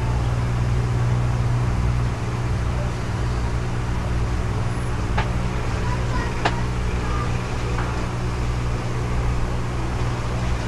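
Steady low hum of aquarium equipment with the fizzing of a bubble curtain rising through the tank water, and two small clicks about five and six and a half seconds in.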